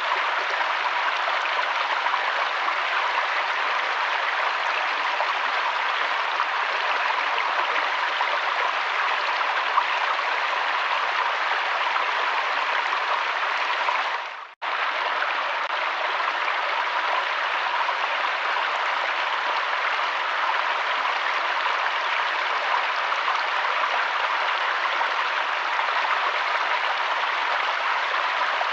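Flowing river water, a steady even rush of stream noise. About halfway through it dips out almost to silence for a moment, then comes straight back at the same level.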